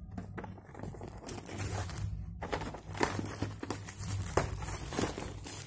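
Plastic wrapping crinkling and crackling as hands handle a wrapped product box. The crackling grows busier about halfway through.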